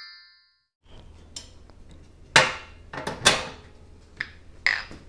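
Dishes and a pan knocking and clattering as they are handled on a table, several separate knocks with the loudest in the middle, over a low steady hum.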